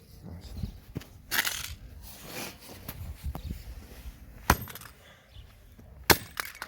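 Recoil starter of a Poulan Pro chainsaw being smashed apart: scattered crunching and sharp impacts, with the sharpest blows about four and a half and six seconds in.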